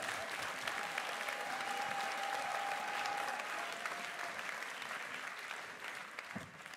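Audience applauding in a theatre hall, a dense patter of many hands that fades away near the end.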